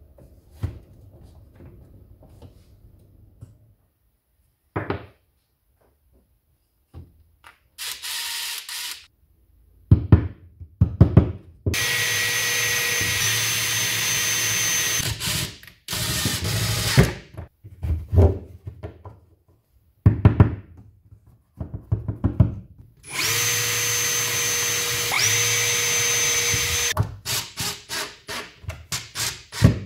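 Power drill boring a hole through wood in two long steady runs of about three to four seconds each, its whine dipping in pitch partway through each run as the cut loads it. Shorter bursts and knocks come between the runs, and a quick series of knocks near the end.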